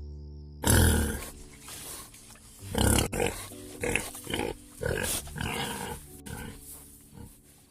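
A farm animal calling about five times in harsh, noisy bursts, the loudest about a second in, over soft background music.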